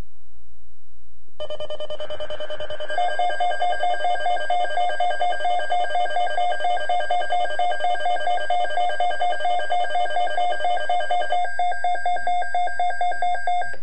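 Weather radio alert alarm: a loud electronic beep that pulses rapidly and evenly, starting about a second and a half in. It signals an incoming Environment Canada weather bulletin. The tone thins out shortly before the end.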